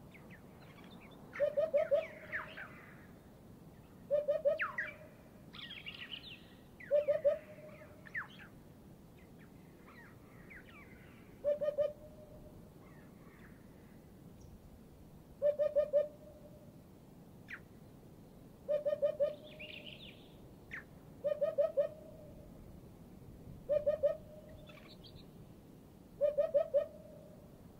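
Eurasian hoopoe singing its low, soft three-note hoo-hoo-hoo phrase, repeated about every two to four seconds, in a dawn chorus with higher calls of other birds in between.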